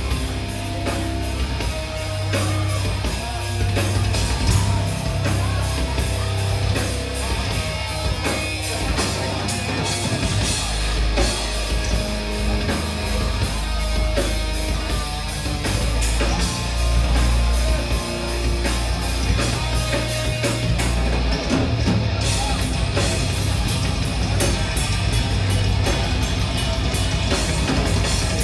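Heavy metal band playing live: distorted electric guitars, bass and a drum kit with rapid, steady drumming, loud and dense.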